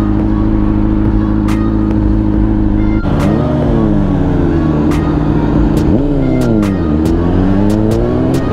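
2005 Honda CBR600RR's inline-four engine running at a steady pitch, then rising and falling in pitch several times from about three seconds in as the throttle is opened and closed in slow freeway traffic.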